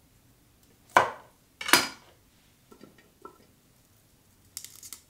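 A chef's knife knocks sharply twice on a wooden cutting board, then taps lightly a couple of times. Near the end there is a brief clatter as sliced broccoli stems drop into a stainless steel steamer basket.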